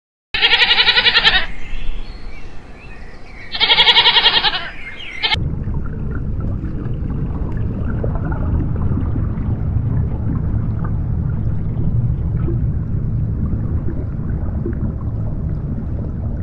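Two loud, drawn-out animal calls about three seconds apart, then an abrupt change to a steady low rumble.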